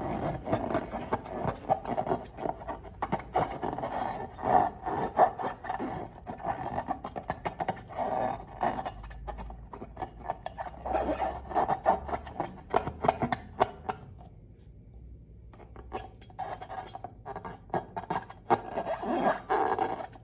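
Slime being squished and kneaded by hand, making a run of sticky, irregular crackling and clicking sounds, with a short pause about two-thirds of the way through.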